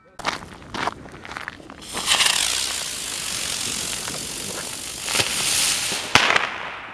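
Firecrackers: a few sharp pops, then burning pyrotechnics hissing and crackling loudly for about four seconds, broken by a sharp bang about six seconds in.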